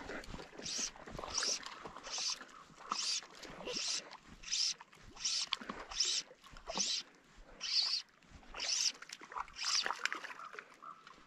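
Fly line being retrieved in quick, even pulls while a hooked fish is brought in, a scratchy swish about every three-quarters of a second.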